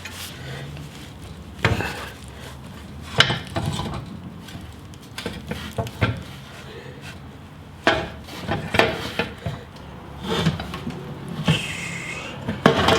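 Scattered metal clanks, knocks and scraping of a Kawasaki KX250F dirt bike engine being worked by hand out of a tight-fitting frame.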